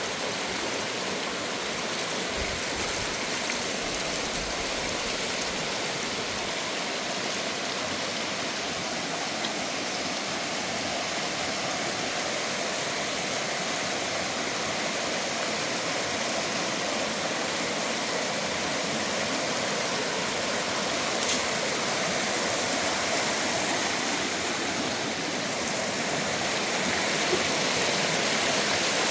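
Steady rushing of running water, unbroken and even.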